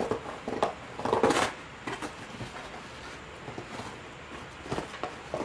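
Books and plastic wrapping being handled in a cardboard box: short plastic rustles and light knocks and scrapes, with the loudest rustle about a second in.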